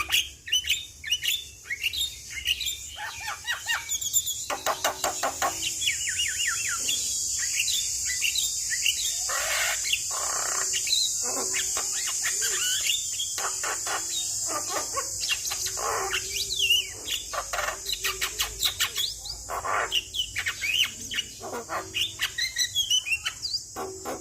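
Javan myna (jalak kebo) singing a continuous, varied run of quick chirps, whistles and harsh rattling notes, over a steady high-pitched hiss.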